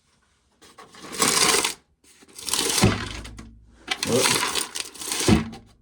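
Dry shelled corn kernels rattling and pouring in three bursts of about a second and a half each, with a dull thump during the second and third.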